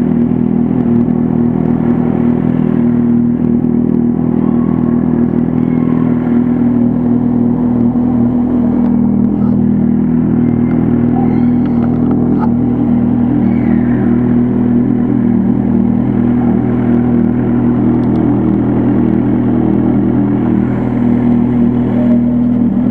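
Kawasaki Z800 inline-four engine running loud through its aftermarket Jeskap exhaust, held at a steady engine speed while riding.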